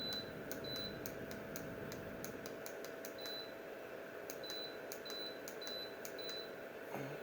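TaoTronics space heater beeping with each press of its remote as the set temperature is stepped down: a string of short high beeps with clicks, about eight in all, coming faster in the second half, over a faint steady hum.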